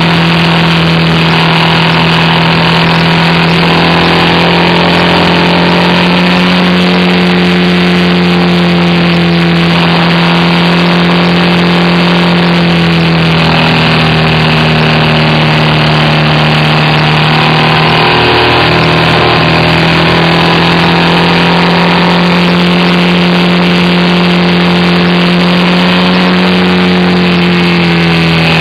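BMW R1200RT's flat-twin boxer engine running at steady riding revs under a constant rushing noise. The engine note steps slightly lower about halfway through and falls away near the end as the bike slows.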